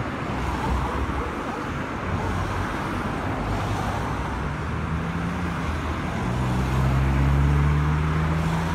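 Road traffic running by, with a motor vehicle's engine growing louder as it passes close by near the end.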